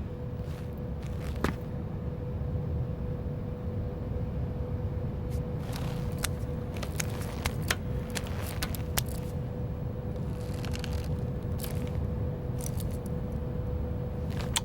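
A steady low rumble with a faint constant hum, and scattered small clicks and scrapes, most of them in the middle of the stretch.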